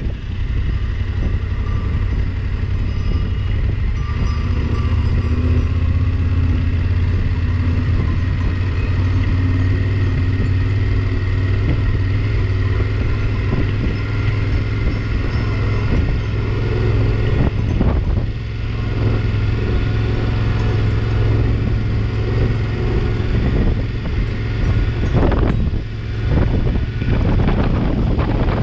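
Yamaha Ténéré 700's 689 cc parallel-twin engine running steadily at low road speed, heard from on the bike, with a few brief gusts of noise later on.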